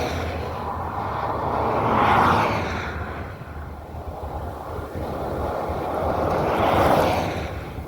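Vehicles passing on a road: tyre and road noise swells and fades twice, over a low steady hum.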